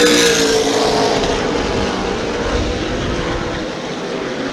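Super late model stock cars' V8 engines at racing speed going past: loudest at the start with the engine note dropping slightly as they pass, then fading away.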